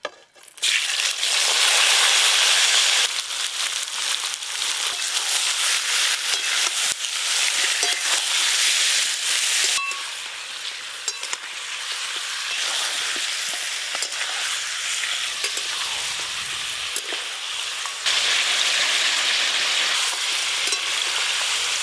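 Washed raw chicken pieces tipped into hot mustard oil in a metal kadai, sizzling loudly about half a second in as they hit the oil, then frying steadily. A metal spatula stirs and scrapes them around the pan, giving scattered clicks over the sizzle.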